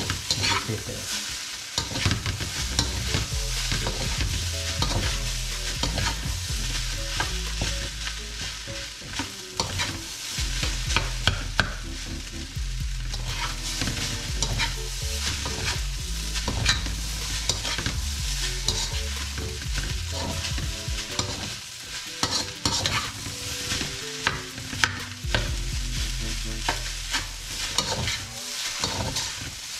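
Fried rice sizzling in a stainless steel pan while it is stirred and turned with a metal slotted spoon, which scrapes and clinks against the pan many times.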